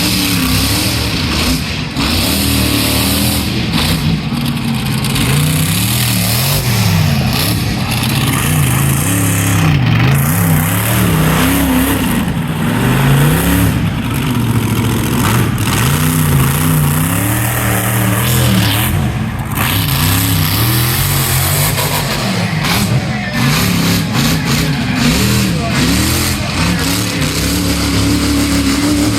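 Monster truck's engine revving hard and repeatedly, its pitch rising and falling over and over as the throttle is worked during a freestyle run.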